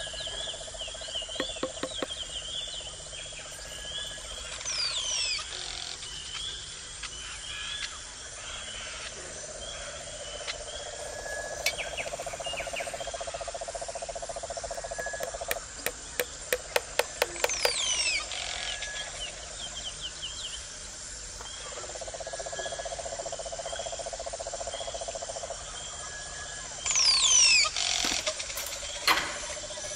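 Outdoor ambience of insects chirping steadily about twice a second, with birds calling in short falling whistles now and then. About halfway through comes a quick run of sharp taps.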